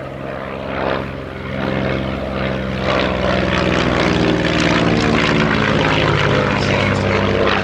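North American Navion's six-cylinder piston engine and propeller droning in a fly-past, growing louder over the first few seconds and staying loud through the latter half.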